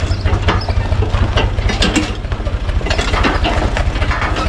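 UTB U445 tractor's four-cylinder diesel engine running with a steady low throb while it manoeuvres a hay wagon, with loose metal clanking and rattling throughout.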